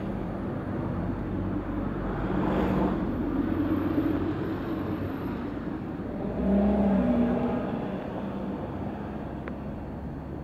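Road traffic: motor vehicles passing on a street, engine and tyre noise swelling twice, around three and seven seconds in, over a steady low hum.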